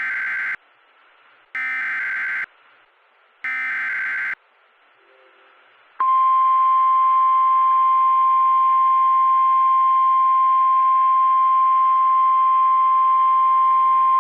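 Emergency Alert System SAME header data bursts: the end of one burst, then two more, each about a second long with a second's gap between them. About six seconds in, a single steady tone starts and holds: the 1050 Hz warning alarm tone of NOAA Weather Radio.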